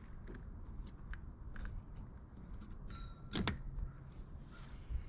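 Light handling clicks and taps over a low rumble, with one sharper click about three and a half seconds in.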